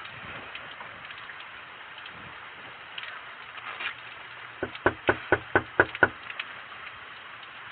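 Fist knocking on a door, about seven quick loud knocks in a row a little past halfway, over the steady hiss of falling rain.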